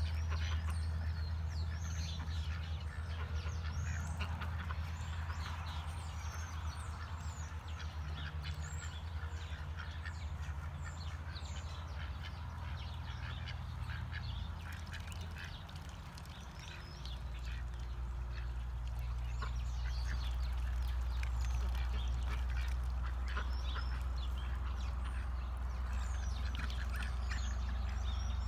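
Domestic ducks (Welsh Harlequin, Ancona and Pekin) quacking on and off. A steady low rumble runs underneath and is the loudest thing.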